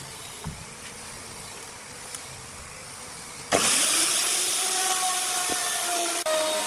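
Handheld electric router switching on suddenly about halfway through and running loud and steady, cutting a groove into a wooden log.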